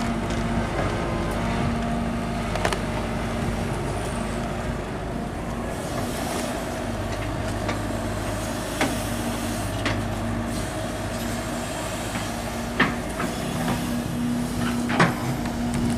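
Sumitomo 265 tracked excavator's diesel engine running steadily under work, with a few short sharp clanks scattered through.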